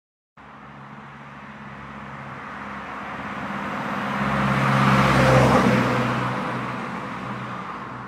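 A car driving past, its engine hum and road noise swelling to a peak about five seconds in and then fading away. It starts abruptly just after the beginning.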